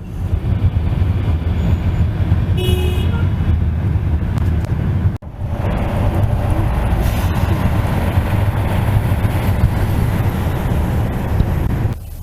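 Steady road-traffic rumble with a short vehicle horn toot about three seconds in. The sound cuts out for an instant about five seconds in, then carries on.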